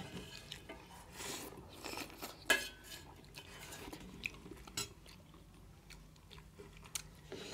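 Metal spoon scraping and clinking now and then on a stainless steel plate, with soft chewing of milk-soaked rice between the strokes.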